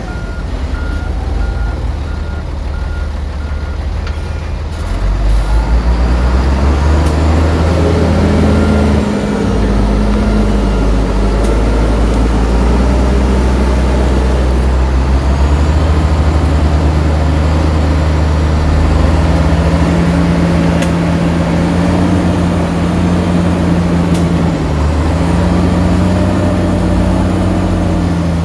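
Heavy diesel engines of earthmoving machinery working under load, their pitch rising and falling as the machines are worked: revving up about five seconds in, easing back near nine seconds, then climbing again and holding high through the second half.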